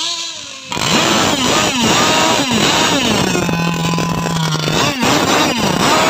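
Small two-stroke engines of radio-controlled racing powerboats being revved on their stands with the propellers out of the water, more than one at once. The pitch rises and falls in repeated throttle blips, with one engine held at a steady speed for about a second near the middle.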